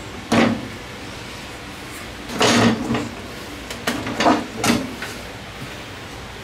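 Knocks and scraping slides as a benchtop table saw is shifted into place on the OSB top of its stand: a sharp knock about half a second in, a longer scrape about midway, then three quick knocks.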